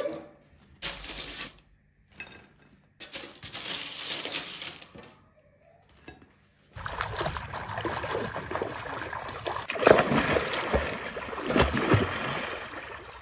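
Crinkle-cut fries tipped onto ceramic plates with a silicone spatula, in short clattering bursts. About seven seconds in, pool water splashing and sloshing takes over, with a few louder splashes.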